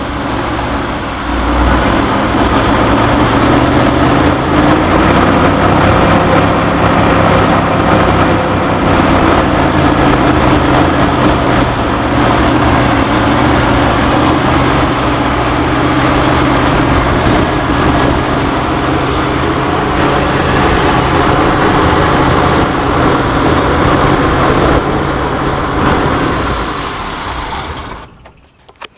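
Chevrolet 230 inline-six engine running at high revs on a Weber 32/36 two-barrel carburettor, steady and loud. It gets louder about a second in and stops near the end. The high revs come from a vacuum leak in this carb setup.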